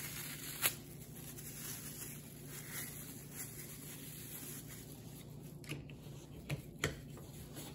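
Faint rubbing and handling of small plastic parts, with a sharp click early on and a few more sharp clicks about six to seven seconds in as the plastic cover is pressed onto the rear wiper arm's pivot.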